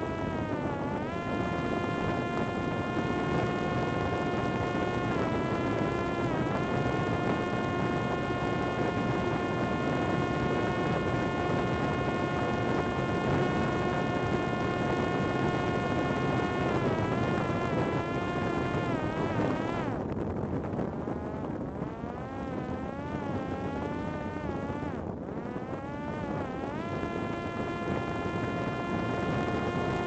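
Parrot Disco fixed-wing drone's electric motor and pusher propeller whining at high throttle in fast low-level flight, over wind rushing past the aircraft. The high whine holds mostly steady with a few brief dips, falls and wavers for several seconds past the middle as the throttle changes, then climbs back near the end.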